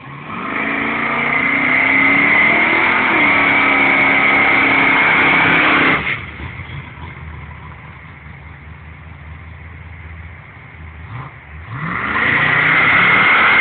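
Car engine revved hard for about six seconds, dropping back to a lower steady running, then revving up hard again near the end, with a steady high-pitched squeal over the loud parts.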